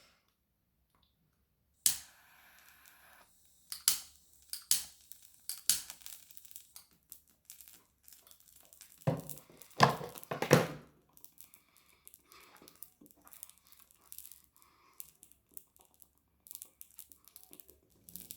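Scattered rustling, crinkling and clicking as a container of ajwain (carom seeds) is handled, with two louder bursts about nine to eleven seconds in.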